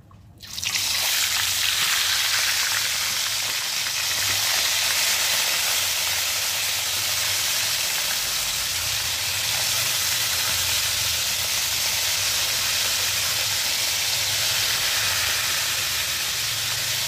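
Catfish pieces deep-frying in hot oil in a wok: a steady loud sizzle that starts suddenly about half a second in as the fish goes into the oil.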